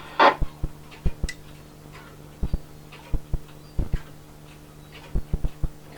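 Radio receiver output during a gap in a VHF coastguard broadcast: a steady low hum with irregular sharp clicks and crackles, and a brief burst of noise just after the start.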